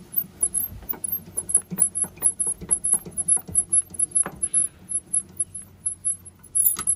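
Car jack being lowered by turning its bent crank handle and extension rod: rhythmic clicking and squeaking, about four times a second.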